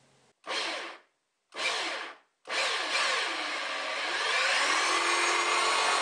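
Handheld power drill with a hole saw cutting a 1.5-inch hole through the thin plastic wall of a wastebasket: two brief spin-ups, then a continuous run from about two and a half seconds in, the motor's pitch wavering as the saw bites.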